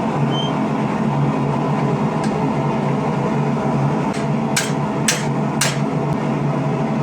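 Steady low mechanical drone of workshop equipment, with three sharp metallic strikes about half a second apart a little past the middle.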